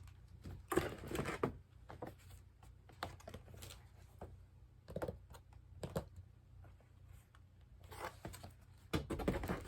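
Irregular clicks and rustling of cosmetic products and their packaging being handled, in scattered short bursts, loudest about a second in and again near the end.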